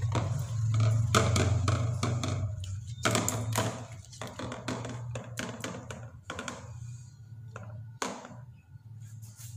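Hands squishing and turning a whole Nile tilapia in thick wet batter in a bowl: irregular wet squelches and taps of the fish and fingers against the bowl, busiest in the first few seconds, over a low steady hum.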